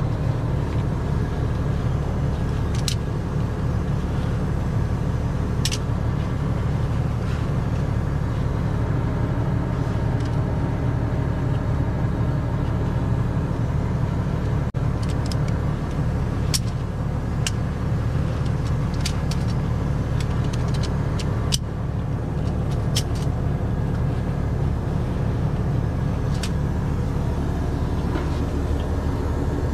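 Heavy truck's diesel engine idling steadily, a low even drone, with a few sharp metallic clicks now and then from the ratchet strap and underlift hardware being handled.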